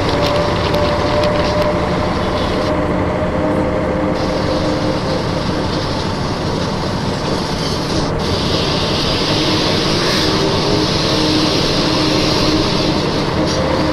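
Toy bus running with a steady, engine-like drone that does not change, with faint held tones over it.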